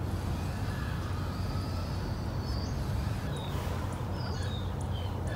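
Small birds chirping, mostly in the second half, over a steady low rumble.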